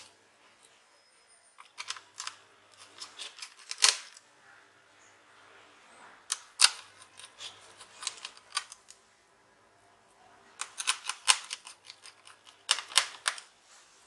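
Small screwdriver driving and tightening tiny screws into a laptop's drive bay: rapid clicking and ticking of metal on metal, in four separate bursts with short pauses between.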